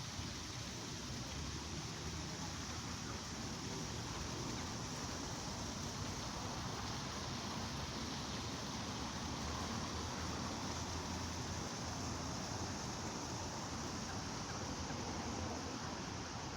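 Steady, even rush of water from a fountain, mixed with light drizzling rain.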